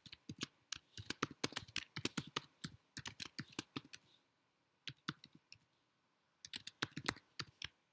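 Typing on a computer keyboard: quick runs of key clicks with short breaks, a pause about four seconds in, a few keystrokes, then another pause before a last run near the end.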